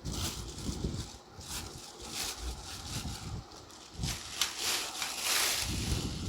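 Handling of a ceiling fan blade and its packaging: irregular rustling with knocks and bumps, and a longer rustle near the end.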